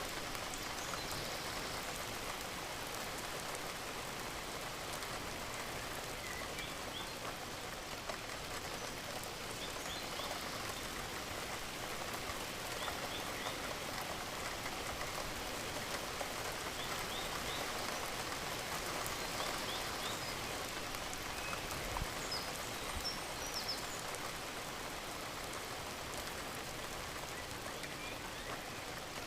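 Gentle, steady rain falling and pattering on surfaces, with a few faint, short high chirps now and then.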